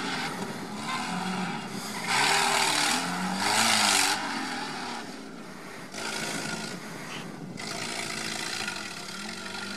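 Stock UAZ off-roader's petrol engine working hard on a sprint course, its revs rising and falling. Two louder bursts of hissing, scraping noise come about two and three and a half seconds in.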